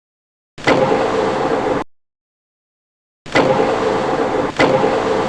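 Metal lathe running with a steady mechanical hum, in three short bursts: about half a second in, again near the middle, and once more near the end. Each burst starts and stops abruptly, with dead silence between the first two.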